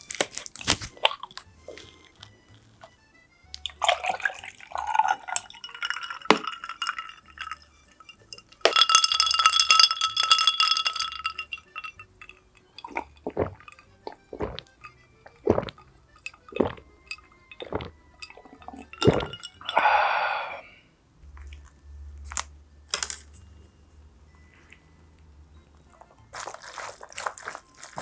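Close-up eating and tableware sounds: sharp clicks and knocks of utensils on dishes, with wet, liquid sounds of food being handled.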